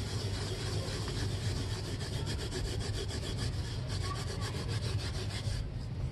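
Dry red dirt blocks being rubbed against each other and crumbled by hand, a gritty scraping crunch of grains grinding off into loose powder. The fine high crackle thins out near the end as the blocks break into chunks.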